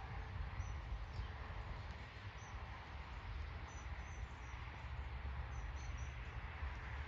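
Outdoor background noise: a steady low rumble with short, high bird chirps scattered throughout.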